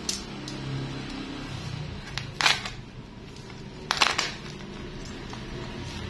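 Plastic parcel wrapping crinkling and rustling as it is handled and cut into with a snap-off utility knife, with two louder crinkles about a second and a half apart.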